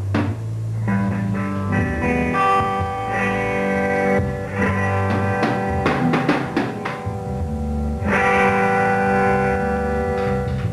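Guitar played through an amplifier, letting chords ring and changing them every second or two over steady low notes.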